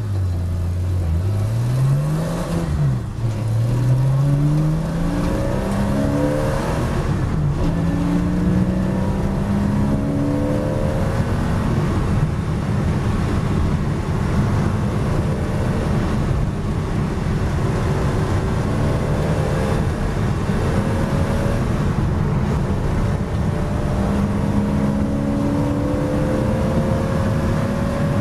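Porsche Boxster S race car's flat-six engine heard from inside the cockpit, pulling away from a standstill and accelerating hard through the gears. In the first several seconds the pitch climbs and drops back at each upshift, then rises more slowly over a steady drone of road and wind noise as speed builds.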